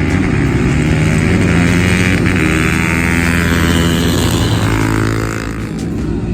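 Off-road vehicle's engine running hard at high revs, its note dropping and easing off about five and a half seconds in.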